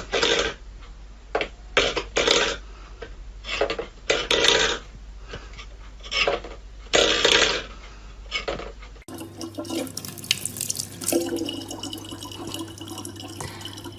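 Water splashing in irregular bursts, then, after a sudden change about nine seconds in, water running steadily over a low, constant hum.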